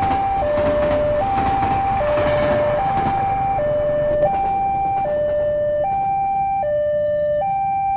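Level crossing warning alarm: an electronic two-tone signal alternating slowly between a higher and a lower pitch, about a second and a half per cycle. Under it, the rumble and clatter of a passing train thin out about halfway through.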